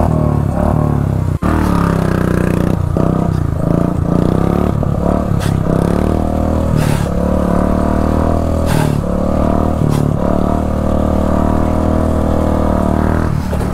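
Motorcycle engine running under way, its pitch rising and falling as the throttle changes. The sound cuts out briefly about a second and a half in.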